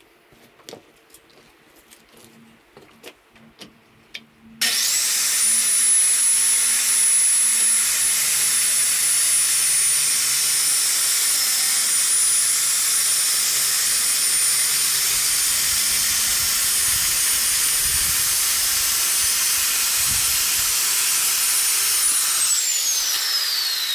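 Corded electric power saw switched on about four and a half seconds in. It runs with a steady high whine and hiss for about seventeen seconds while trimming the bottom off a screen door, then is switched off near the end and winds down with a falling whine. A few light handling clicks come before it starts.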